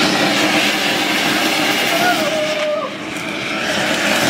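Anar fountain fireworks burning together with a loud, steady rushing hiss as they spray sparks, dipping briefly about three seconds in.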